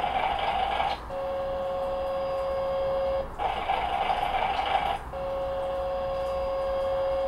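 Sound effects from a Wi-Fi model tank's loudspeaker: a steady turret-traverse whine, played twice for about two seconds each. Between them runs the recorded idling-engine loop.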